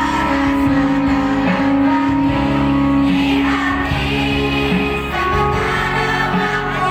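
A group of schoolchildren singing together over amplified backing music, one girl singing into a microphone.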